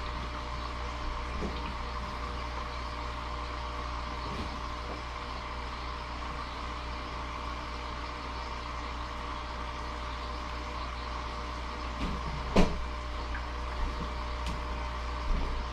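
Steady machine hum, with a few light knocks and one sharper click about three-quarters of the way through.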